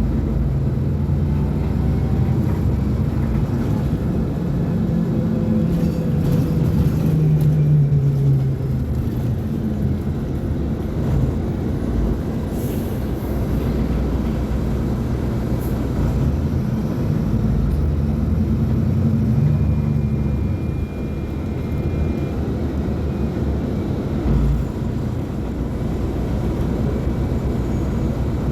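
Mercedes-Benz O500U bus's diesel engine running while the bus is under way, a steady low rumble whose pitch rises about six to eight seconds in and then eases off, with smaller rises and falls later.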